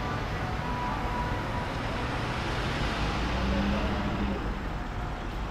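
Cars driving slowly past at close range: engines running at low speed with tyre noise on the pavement, as a hearse moves by and a classic Ford Mustang convertible draws near.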